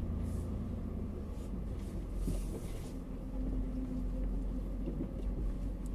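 2012 Jeep Liberty's 3.7-litre V6 running with a steady low rumble as the Jeep creeps along a muddy trail in four-wheel-drive low, heard from inside the cabin. A brief hiss comes about two seconds in.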